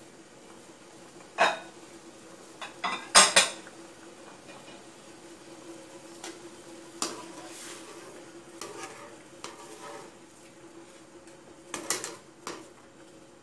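Wire-mesh skimmer knocking and clinking against the side of a large aluminium pot as boiling wontons are stirred: several sharp metallic knocks, loudest in a quick cluster about three seconds in, over a steady low hum.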